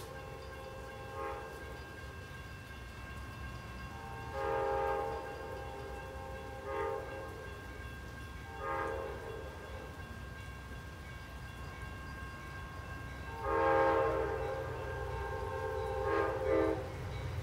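Amtrak passenger locomotive's multi-chime air horn sounding a series of blasts, two of them about a second long and the rest short, as the train approaches.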